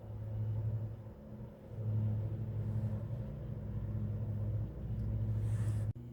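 A low droning hum that swells and dips in loudness a few times, then cuts off abruptly near the end.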